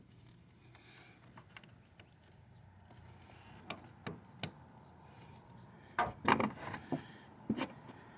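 Scattered sharp clicks and knocks of hard parts being handled and fitted. The loudest cluster comes about six seconds in.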